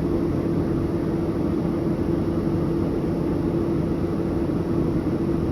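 Tractor engine running steadily under load while pulling a grain cart: an even drone with one steady hum held throughout.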